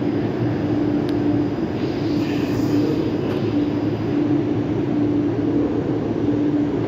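R179 subway car standing in the station, its onboard equipment giving off a steady hum with a low tone that comes and goes.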